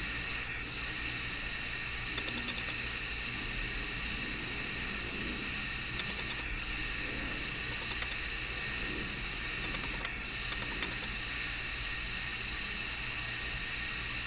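Steady background hiss with a low hum underneath, unchanging throughout.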